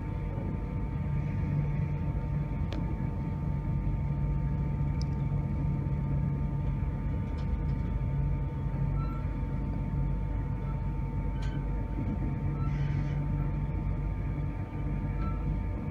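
Inside a passenger train coach running along the line: a steady low rumble from the wheels and running gear on the track, with a thin steady hum and a few faint ticks.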